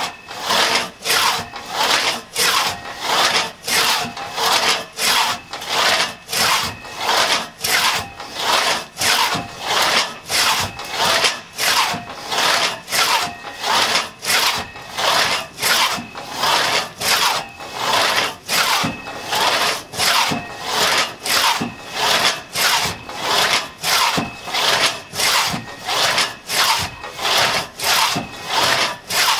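A 4.5-foot Tuttle-tooth one-man crosscut saw cutting through a log by hand. Each push and pull stroke rasps through the wood in a steady, even rhythm.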